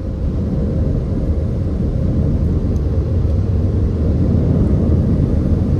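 Car wash air-dryer blowers whooshing, heard from inside the closed car: a steady, low rush of blown air that grows slightly louder.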